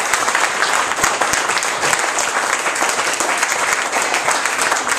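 Audience applauding: a steady, dense patter of many people clapping.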